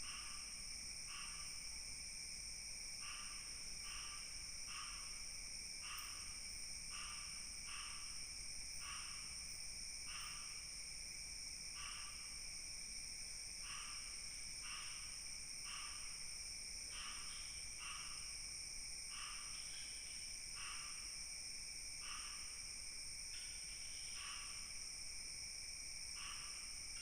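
Night insect chorus: crickets trilling steadily at several high pitches, with a short call repeating about once a second over them.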